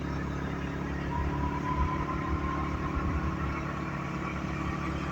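Car engine and road rumble while driving, with a faint thin whine that comes in about a second in and holds steady.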